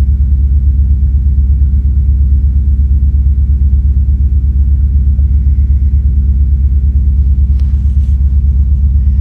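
A cat purring right up against the microphone: a loud, steady, fast-pulsing low rumble.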